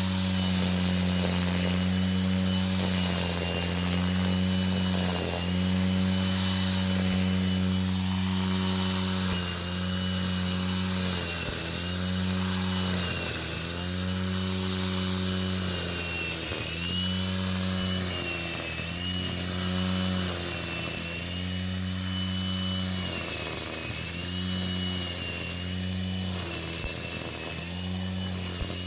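Electric angle grinder rigged as a grass cutter, its motor running continuously with a high whine. The pitch dips briefly every second or two as the motor bogs under load while cutting grass.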